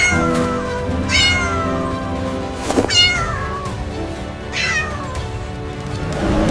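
A cat meowing four times, each call sliding down in pitch, over background music.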